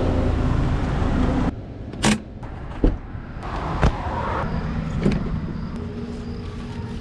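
A vehicle engine running steadily, which stops abruptly about a second and a half in. Then come four separate sharp knocks, roughly a second apart, over a quieter steady background.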